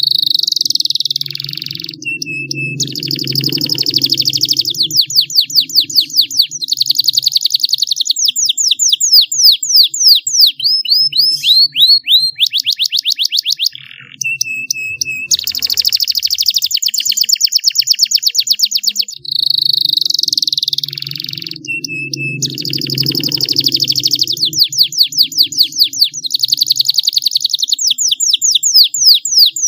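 Domestic canary in full song: long, fast trills and rolls of rapidly repeated notes, broken by a few short pauses and, a few times, a brief steady whistled note.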